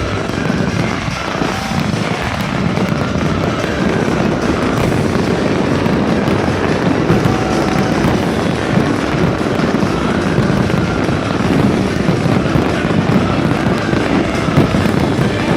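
Fireworks display going off continuously: a dense, steady crackle and rumble of bursts, with music playing along.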